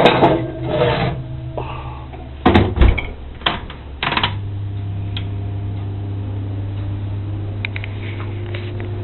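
Dishes and utensils clatter with several sharp knocks. About four seconds in, a kitchen appliance starts a steady low electrical hum that keeps running.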